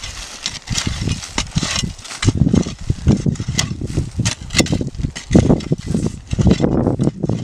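A coa's flat metal blade chopping and scraping into dry, clumpy soil again and again, with clods knocked loose, as a seed hole for maize is dug by hand. The strokes are irregular, lighter at first and heavier, duller thuds from about two seconds in.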